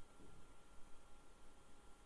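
Near silence: faint room tone with a thin steady electrical hum.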